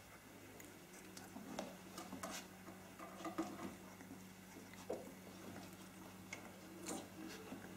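Young Australian Kelpie puppies moving and wrestling on fleece bedding: faint, scattered patters, scuffles and small clicks.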